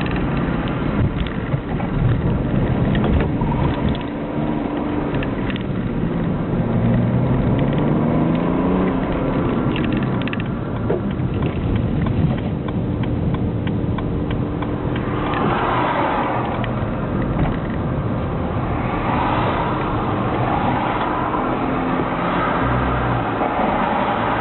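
BMW E90 straight-six diesel with a straight-piped cat-back exhaust and no silencer, heard inside the cabin while driving. The engine note rises and falls with throttle and gear changes.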